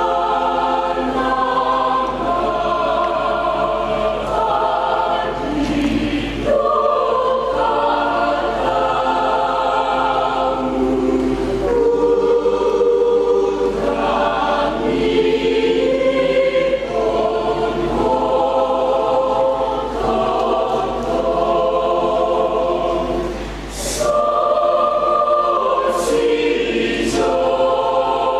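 A church choir singing a hymn in several voice parts, holding sustained chords that move from one to the next. There is a brief breath pause just before the last phrases.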